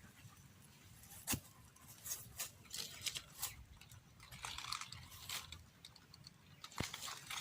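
Rustling and crackling of dry leaves and plants, with two sharp snaps, about a second in and near the end.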